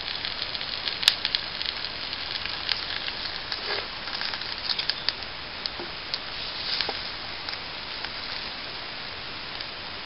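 Eggs sizzling steadily in a frying pan held over a twig-burning stove. Scattered sharp crackles and clicks come through, the loudest about a second in.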